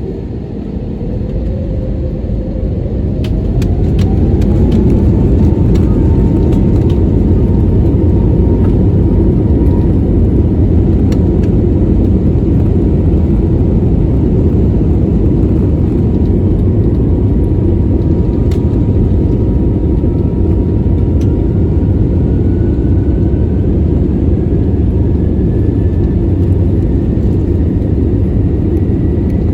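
Airbus A320neo's CFM LEAP-1A turbofan engines heard from inside the cabin, spooling up to takeoff thrust: a whine climbs in pitch as the noise grows over the first four seconds, then a steady loud rumble, with a fainter tone slowly rising in pitch in the second half.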